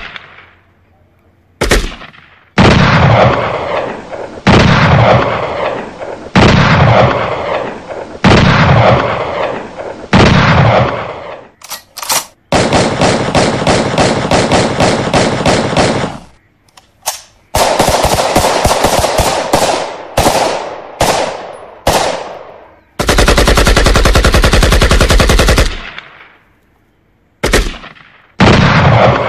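Gunfire: heavy single shots, each dying away with a long echo, with stretches of rapid automatic fire, one in the middle and another about two-thirds of the way through.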